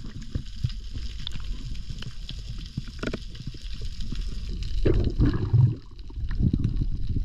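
Underwater sound picked up by a diver's camera: a steady low churn of water with a faint crackling haze above it, swelling into a louder rush of water about five seconds in.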